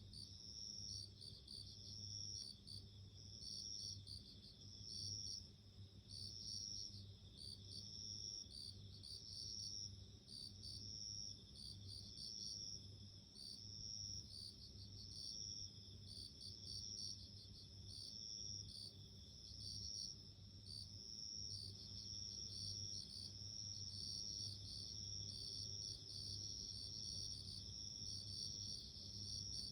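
Bell crickets (suzumushi) chirping: high-pitched ringing chirps repeated about once a second, over a faint steady low hum.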